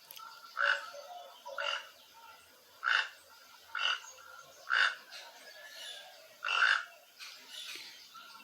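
Toucan calling: a series of short calls repeated roughly once a second.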